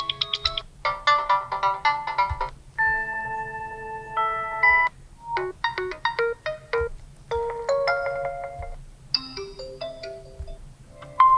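Realme 9 Pro ringtones playing: several short melodies, one after another, with brief pauses between them.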